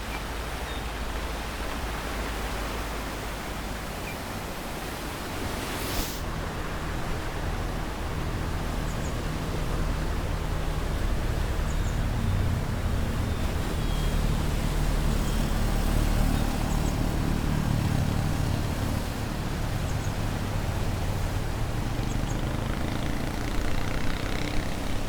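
Pacific Ocean surf washing in a steady roar of noise. From about a quarter of the way in, a motor vehicle's engine running low underneath grows louder and holds, then eases near the end. A single sharp click sounds about six seconds in.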